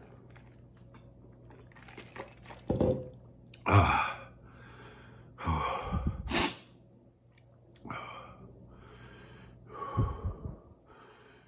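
A man gasping and sighing heavily through an open mouth, a few hard breaths with quiet between them, one a sharp hissing exhale about six seconds in: his reaction to the burn of a very hot sauce.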